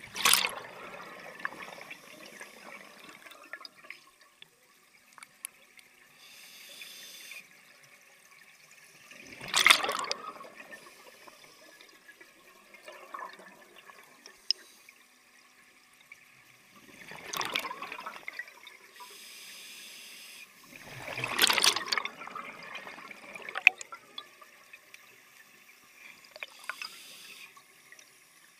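Scuba diver breathing underwater through a regulator: four loud rushes of exhaled bubbles, several seconds apart, with fainter hissing in between.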